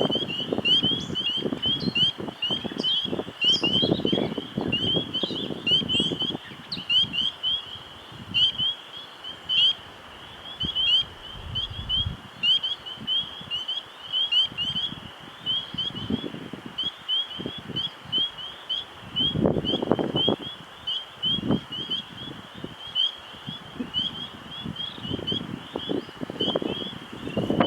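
High, short rising chirps repeated about three times a second without a break, from small calling animals in a spring night chorus. Gusts of wind buffet the microphone, most strongly in the first few seconds and again about two-thirds of the way in.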